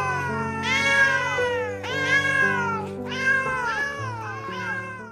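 Several cats meowing in turn, long meows about one a second, over background music with held low notes.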